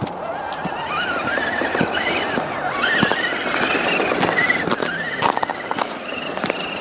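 Axial SCX10 RC crawler's brushed Novak 55-turn motor and gears whining, the pitch rising and falling with the throttle as it crawls over snow and mud. A thin, steady high whine runs over it, with scattered clicks.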